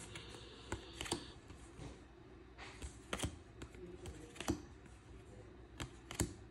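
Baseball trading cards being flipped through by hand: faint slides of card stock over card stock, with light clicks scattered through, about half a dozen, as each card is snapped to the back of the stack.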